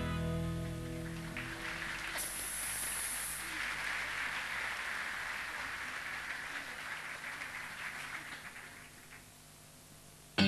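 Rock band music from a stage musical: a held chord fades out over the first second or so, leaving a soft hissing wash that dies away to near quiet near the end.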